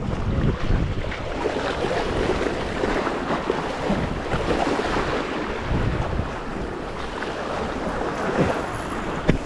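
Steady rush of wind on the microphone mixed with sea water around a fishing boat at sea, with a brief knock near the end.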